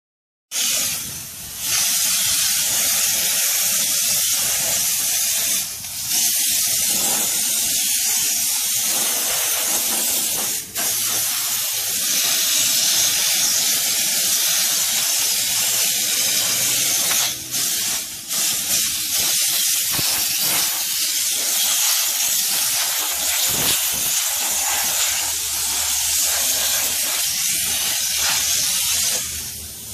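Steam cleaner wand spraying steam over an engine bay: a steady, loud hiss with a few brief breaks.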